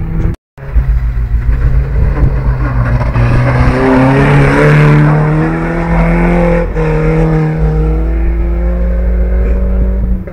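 A Volvo 360 rallycross car's engine revving hard through a gravel corner, its note climbing steadily for a few seconds, dipping briefly at a gear change and then holding high, over a strong low rumble.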